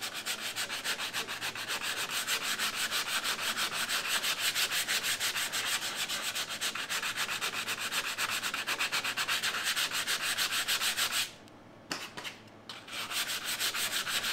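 Sandpaper (80 grit) rubbed by hand over dried body filler on a Vespa 50's primed steel legshield: quick, even back-and-forth sanding strokes, several a second. The strokes stop for about a second around eleven seconds in, then pick up again in short runs.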